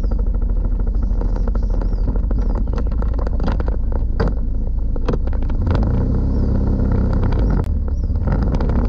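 Small motor scooter engine running steadily, a low even rumble.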